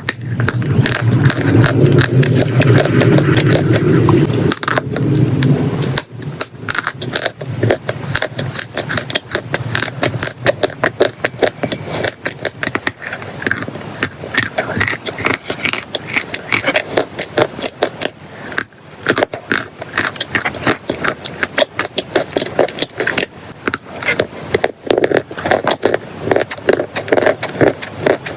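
Dense crunching and crackling of chalk and clay, a rapid run of small sharp cracks; fuller and louder for about the first six seconds, then thinner, sharper crunches.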